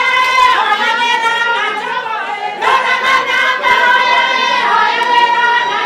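A group of voices, mostly women, singing together unaccompanied in long held high notes that slide from one pitch to the next.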